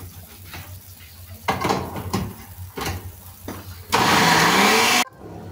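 A few knocks as the glass jar is set on a countertop blender. About four seconds in the blender motor starts and runs loudly for about a second, rising in pitch as it spins up and grinding soaked dried chiles and raw tomatoes into a salsa, then cuts off abruptly.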